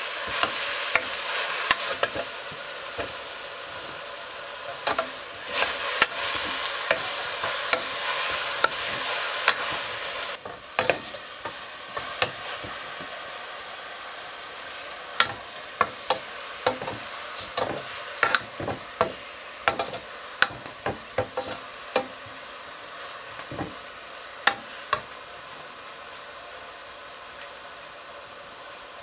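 Green vegetables sizzling as they fry in a metal saucepan, stirred with a long steel ladle that scrapes and clicks against the pan. The sizzle drops quieter about ten seconds in, and scattered sharp clicks continue after.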